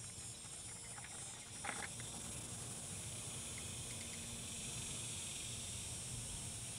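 Faint, steady outdoor background of low hum and high hiss, with one light click about a second and a half in.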